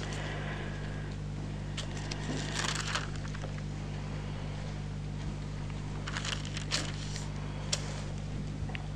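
Bible pages being turned and leafed through, several short papery rustles over a steady low electrical hum.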